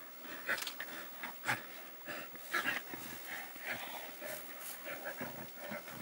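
African wild dogs giving short, high-pitched twittering calls, scattered irregularly, while the pack attacks a wildebeest.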